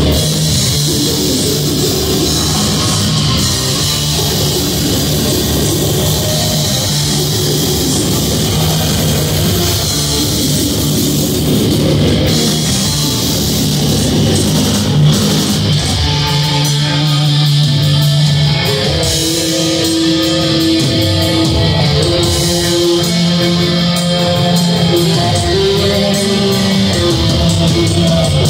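Live metal band playing loud: distorted electric guitars over drums, heard from the crowd. About halfway through, long held melodic guitar notes stand out over the rhythm.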